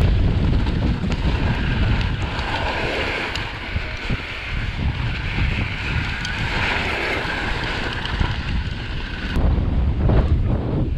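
Wind buffeting the camera microphone over the hiss of a Specialized Demo downhill mountain bike's tyres rolling fast on loose pumice dirt, with faint clicks from the bike. About nine and a half seconds in the hiss drops away and the wind rumble grows louder.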